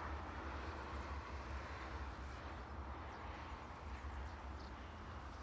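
Faint steady background ambience: a low rumble under a light hiss, with no distinct event.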